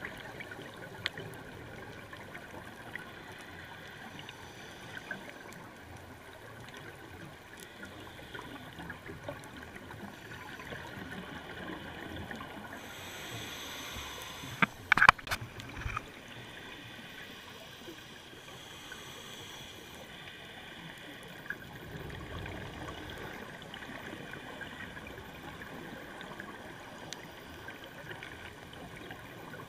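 Underwater sound of scuba diving: the hiss and bubbling gurgle of a diver's regulator breathing, with scattered faint clicks and a brief cluster of loud knocks about halfway through.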